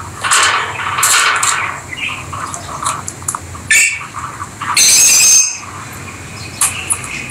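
Rosy-faced lovebirds calling: a run of short, shrill chirps and squawks, with one louder, harsher squawk lasting nearly a second about five seconds in.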